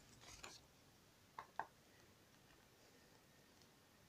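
Near silence: room tone, with two faint clicks in quick succession about a second and a half in.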